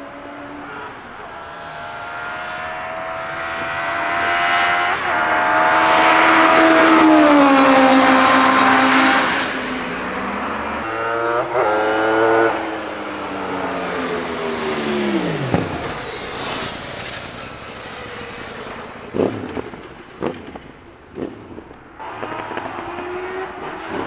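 Racing car engines at full throttle on a circuit. One car approaches, revving hard with its pitch climbing and dropping through gear changes, then passes with its pitch falling steeply. A few sharp cracks follow, and another car is heard approaching near the end.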